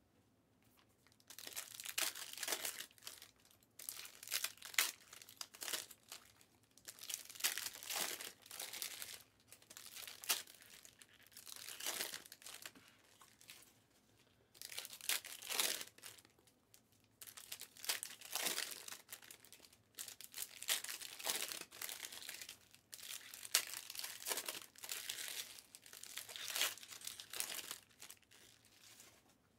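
Trading-card packs being torn open and their wrappers crinkled, in repeated bursts every second or two.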